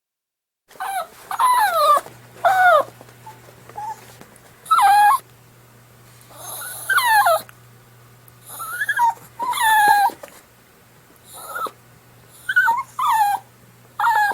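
A 75-day-old Chihuahua puppy whining and whimpering in a dozen or so short, high cries, many falling in pitch, with short pauses between them. The cries start just under a second in.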